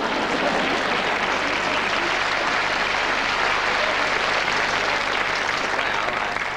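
Television studio audience applauding steadily, dying away near the end.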